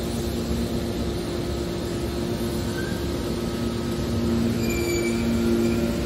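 Hydraulic scrap-metal baler running: a steady low hum from the hydraulic power unit over a mechanical din that grows louder about four seconds in. Short high metallic squeals come in during the second half as the press moves.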